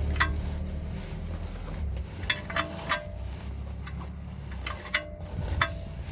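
Sharp metallic clicks and clinks of a hand wrench working on a car's oil pan drain plug, irregular and a few at a time, some leaving a short ringing tone, over a steady low hum.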